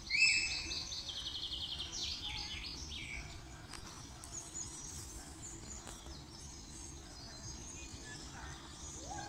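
Songbird singing: a loud trilled phrase during the first three seconds, then scattered fainter chirps, over a steady low background rush.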